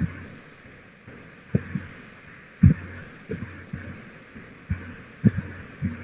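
Irregular dull low thumps, roughly one a second, over a steady faint hiss; the strongest comes a little before the middle.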